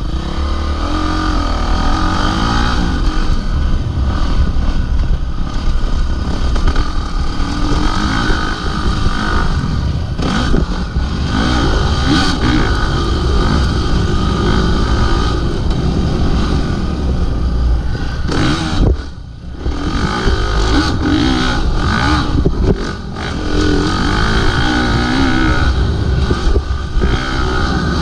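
Dirt bike engine ridden hard around a motocross track, its revs rising and falling continuously. The engine note drops away briefly twice in the second half.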